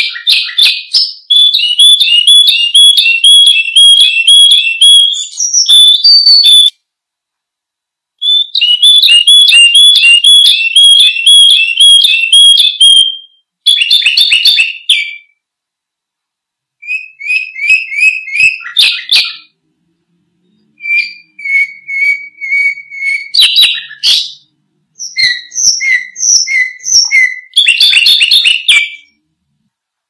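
Domestic canary singing: phrases of quickly repeated high notes and trills, each phrase a few seconds long and on a different note and pace, separated by pauses of about a second.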